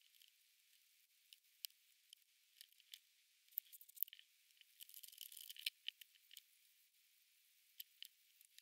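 Praying mantis (Sphodromantis aurea) chewing an adult locust: faint, crisp crunching clicks, coming thick and fast about five seconds in.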